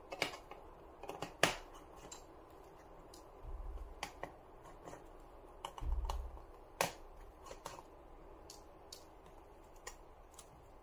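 Scattered light clicks and taps of a metal keyboard bracket and a small screwdriver being handled inside an opened handheld PC, with two low thuds about four and six seconds in.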